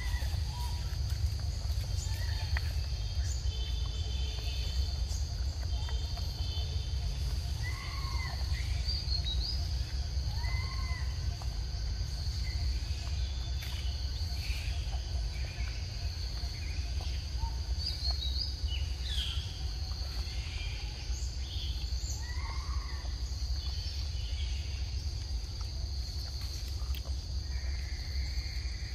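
Forest ambience: a steady high-pitched insect drone over a constant low rumble, with short chirping calls now and then.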